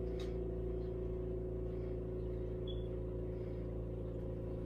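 Steady low machine hum made of several held tones, from a motor running without change.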